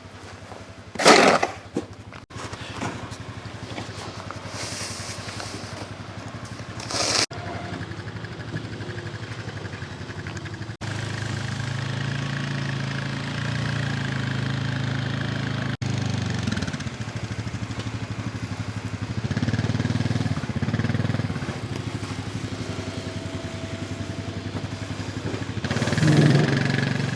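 A vehicle engine running steadily, getting louder from about eleven seconds in, with a loud thump about a second in and another around seven seconds.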